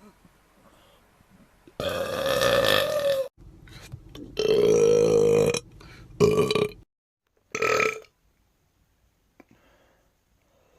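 Four loud burps in a row: two long ones of about a second and a half each, then two shorter ones.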